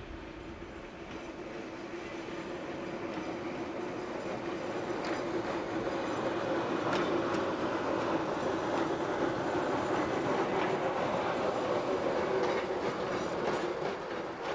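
Diesel engine of a GE 44-ton switcher locomotive running, heard from inside its cab, with scattered clicks of the wheels over rail joints as it rolls. The sound grows louder over the first half and then holds steady.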